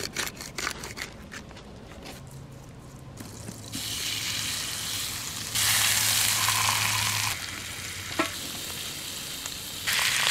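A whole fish sizzling on a hot ribbed grill pan. A run of quick ticks comes first; the sizzle starts about four seconds in, is loudest for a couple of seconds, drops back, then swells again near the end.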